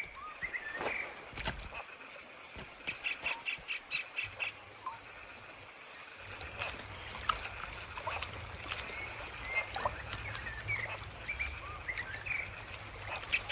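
Forest ambience of birds chirping and calling over a steady high tone. A quick run of about eight pulsed calls comes a few seconds in, and another starts near the end.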